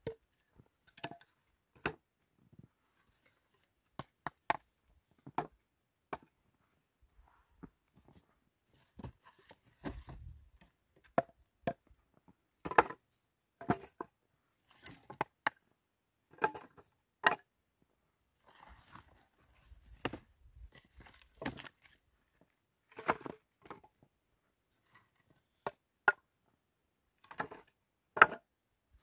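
Pieces of split firewood knocking and clattering against each other as they are picked up from a woodpile and set down: single sharp wooden knocks at irregular intervals, about one a second, louder in the second half.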